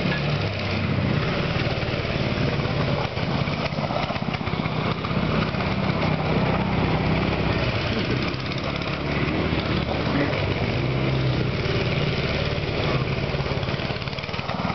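Small single-cylinder engines running: a 90cc Doodlebug mini bike and a 5 hp go-kart circling close by, their pitch rising and falling as they speed up and slow down.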